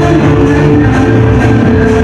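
Dance music: held notes over a steady bass line, loud and even.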